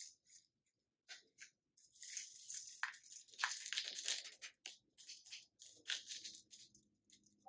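Plastic shaker of sprinkles shaken over a cup of ice cream, the sprinkles rattling in the container in a run of quick shakes, densest in the first half and then in short separate bursts. A foil packet crinkles at the very start.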